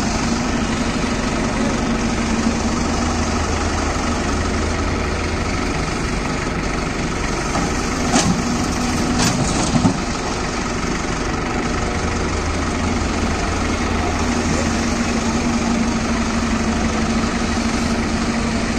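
Diesel engines of a Hyundai tracked excavator and a tractor running steadily. About 8 seconds in, a few sharp knocks and a short clatter as the excavator bucket swings over and dumps soil into the steel tractor trolley.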